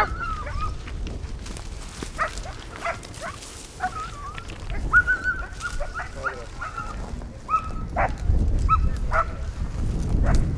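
Ibizan hounds (podencos ibicencos) yelping and barking repeatedly in short high calls, a few drawn out into a held whine, as they give tongue while hunting game through the scrub. A low rumble on the microphone builds near the end.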